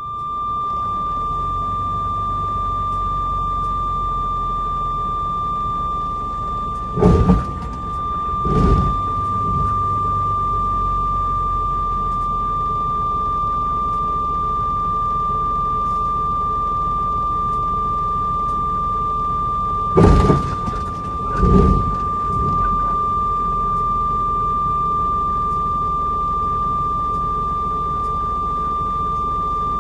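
Truck engine running, heard from inside the cab, under a steady high-pitched tone. Two pairs of loud thumps come about a second and a half apart, one pair about seven seconds in and another about twenty seconds in.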